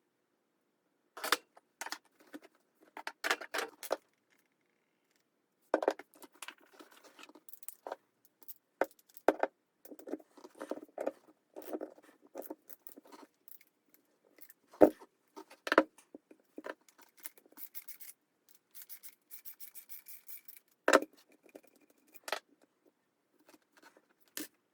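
Irregular clicks, clacks and scraping of hand tools and metal parts, with a few sharper knocks, as the old friction dampers of a Panasonic drum-type washing machine are worked off their mounting bases.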